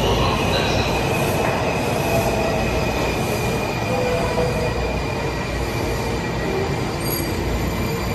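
Washington Metro 3000-series subway train rolling into an underground station and slowing past the platform. The wheels and running gear make a steady rumble, and a high, steady whine sits over it.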